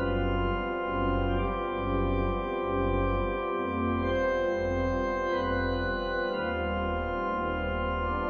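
Pipe organ playing held chords over a low pedal line whose notes change about once a second.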